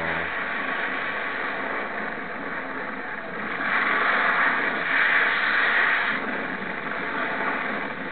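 Film sound effects of a nuclear reactor exploding, played through laptop speakers: a rushing noise that swells about halfway through and eases off toward the end.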